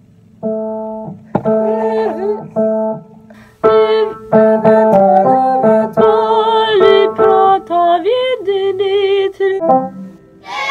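A woman singing a melody over held instrumental accompaniment chords. The accompaniment comes in about half a second in, the voice carries on from about a third of the way through, with brief breaks between phrases.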